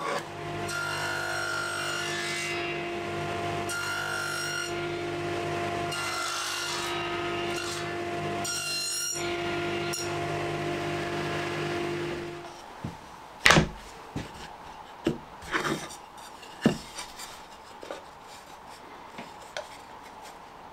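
Table saw running steadily while cutting lap joints in sycamore boards, the cutting noise swelling about four times as the blade passes through the wood; the saw stops about two-thirds of the way through. After that, a few sharp wooden knocks as the cut boards are handled and fitted together.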